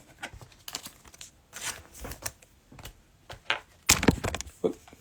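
Trading cards and plastic pack wrappers being handled: a run of small clicks, taps and scuffs, with a louder rustle about four seconds in.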